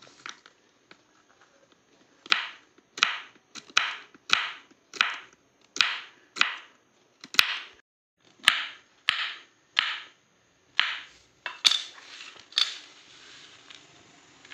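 A series of about fifteen sharp cracks or knocks, roughly two a second, each dying away quickly, with a brief pause about eight seconds in.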